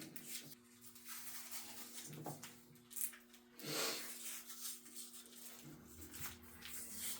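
Harness tape being pulled off the roll and wrapped around a wiring harness in wire loom: intermittent rubbing and rasping, loudest about four seconds in, over a steady low hum.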